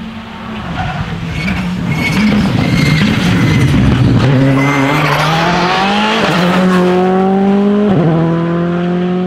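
Rally car accelerating hard close by, its engine note climbing in pitch and dropping sharply at two upshifts, about six seconds in and again about two seconds later.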